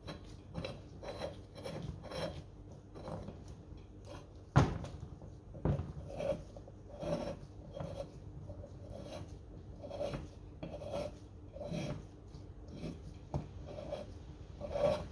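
Steering box end cap being screwed by hand into a Holden HQ manual steering box housing, its threads scraping in a run of short rasps about twice a second. There is a sharp metallic click a little under five seconds in.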